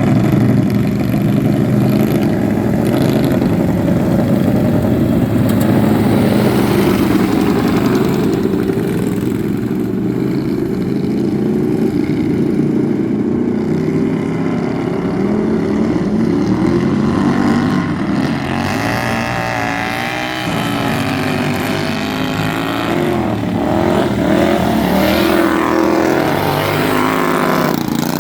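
Engines of several racing lawn mowers running hard together, their pitches rising and falling as they rev, more plainly in the second half.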